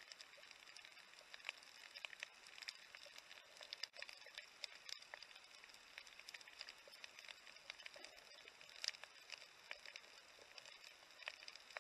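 Faint underwater crackle of scattered sharp clicks on a reef, typical of snapping shrimp, with a loud click near the end. A few faint steady high tones run underneath.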